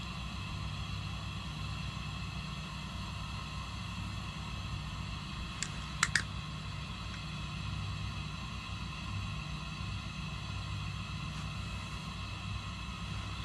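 Steady mechanical hum with a low rumble and a faint high whine, broken by two or three sharp clicks about six seconds in.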